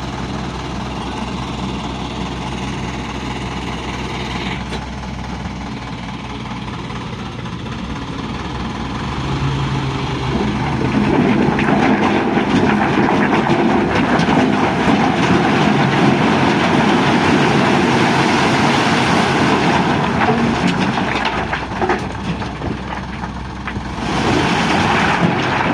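Isuzu dump truck's diesel engine running steadily, then revving harder and louder from about ten seconds in, as the loaded truck works to pull through mud.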